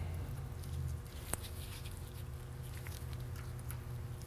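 Faint clicks and light scraping of a steel valve retainer and keepers being fitted by hand onto a valve stem in a cylinder head, with one sharper click a little over a second in. A low steady hum runs underneath.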